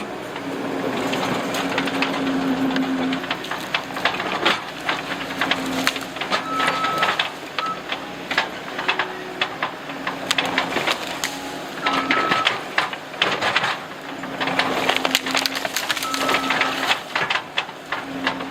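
Case TR270 skid steer running, its engine a steady hum that rises and falls with the work, over a dense run of cracking and crunching as the machine pushes through soil and brush.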